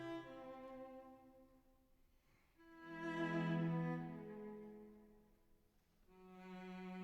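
Background music of bowed strings: slow held notes that swell and fade, with two quiet dips in between.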